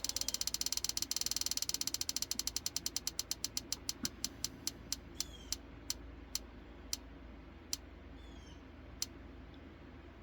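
Prize wheel spinning, its pointer clicking over the pegs: rapid clicks at first that slow steadily as the wheel loses speed, the last one about nine seconds in as it comes to rest.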